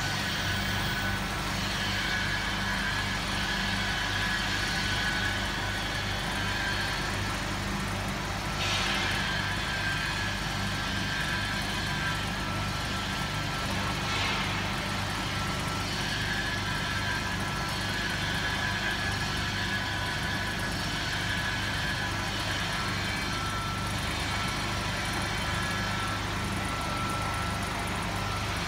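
RX-30L lab vacuum homogenizer mixer running: a steady motor hum with a high whine, briefly brighter twice, about a third of the way in and near the middle.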